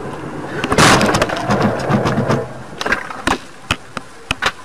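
Road vehicle collision: a loud crash about a second in, a rushing noise that fades over the next second and a half, then several separate sharp clicks and knocks.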